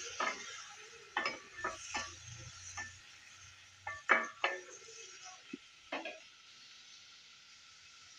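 Chopped tomatoes and shallots being stirred in a nonstick frying pan, with a spoon knocking and scraping against the pan about a dozen times over a light sizzle. The knocks stop about six seconds in, leaving a faint hiss.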